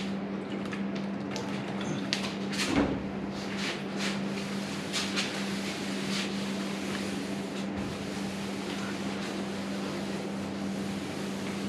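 A steady hum with scattered short rubbing and knocking sounds as vinegar is dumped on and wiped over an aluminium boat hull.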